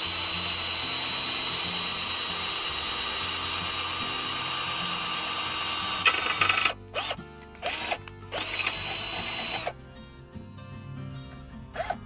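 Black+Decker cordless drill running steadily as it drills a hole through the vehicle's sheet metal. Near the middle it stops, then the trigger is pulled in three short bursts.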